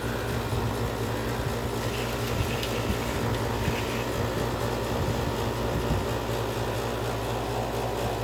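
GoldStar window air conditioner running: steady fan noise with a low hum underneath.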